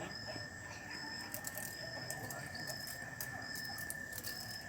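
Insects calling: a steady high-pitched drone with short, higher chirps repeating a little more than once a second, and scattered faint ticks.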